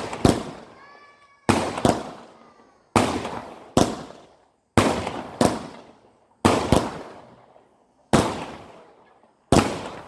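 Multi-shot firework cake firing a steady series of sharp bangs, mostly in quick pairs, a pair about every second and a half, each bang dying away over about a second.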